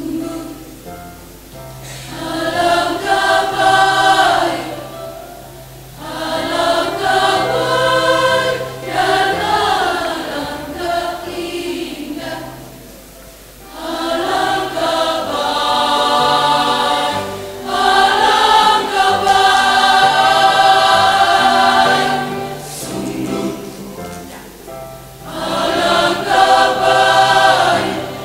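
Women's choir singing an Indonesian hymn in several phrases with brief pauses between them, over steady low sustained notes.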